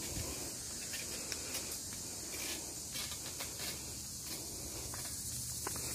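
Outdoor ambience: a steady high-pitched hiss, with soft scattered taps and scuffs of footsteps on a concrete path.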